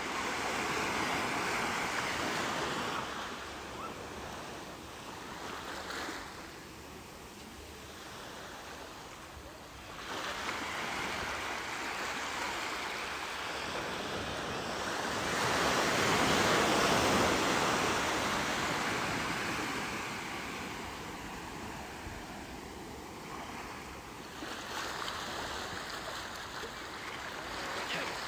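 Ocean surf: waves breaking and washing up the shore, rising and falling in slow swells, strongest about halfway through.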